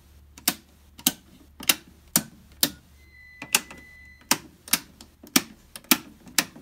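Circuit breakers in a home electrical panel snapped on one after another: sharp clicks at about two a second, as power is restored to the house circuits. A steady high electronic beep sounds for a little over a second about three seconds in.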